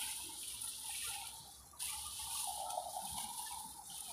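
Dry grass and stalks rustling as they are pulled and pushed aside by hand, with a sudden fresh burst of rustling a little under two seconds in.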